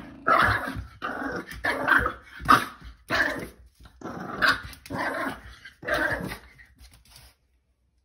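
A puppy giving a run of short growly barks, about ten in a row, at a spring doorstop, stopping shortly before the end.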